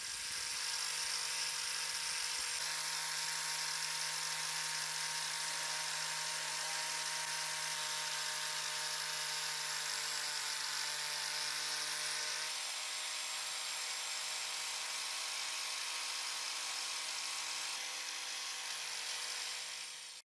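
Motor-driven wire wheel brush spinning against rusted steel snips parts, scouring off the rust: a steady motor whine under a dense scratchy hiss. The hum shifts slightly a little past halfway.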